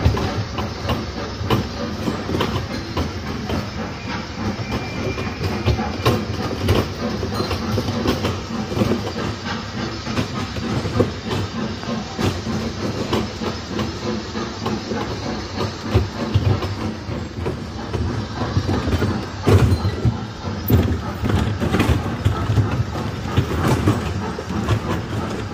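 Sound of a train running on rails, its wheels clicking and knocking irregularly over the track.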